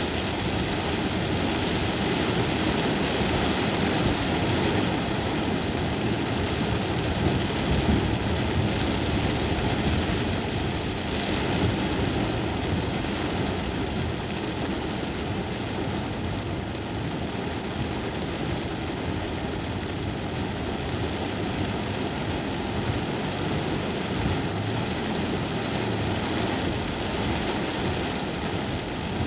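Heavy rain falling on a car's roof and windshield, heard from inside the cabin, as a steady hiss over the car's engine running.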